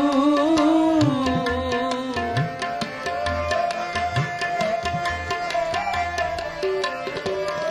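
Instrumental interlude of Sikh kirtan: a harmonium plays the melody in held, stepping notes over a steady tabla rhythm, and the bass drum's strokes bend upward in pitch. The singer's last held note fades out in the first two seconds.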